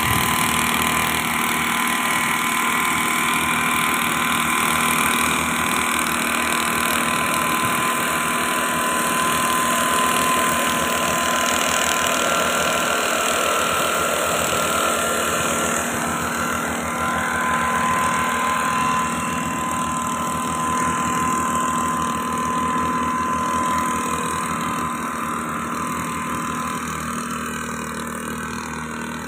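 Two-stroke engine of a backpack motorised mist-blower running steadily, blowing granular fertilizer out over the rice. It grows a little fainter near the end.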